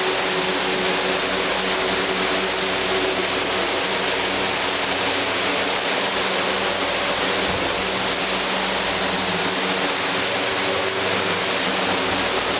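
Steady machine noise: a loud, even hiss over a constant low motor hum, as from a fan or blower running.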